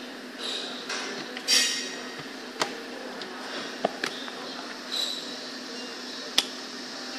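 Stiff vegetable slices clicking and clattering as they are handled and dropped in a plastic mesh crate: a few sharp clicks and one louder rattling clatter about a second and a half in, over a steady low hum.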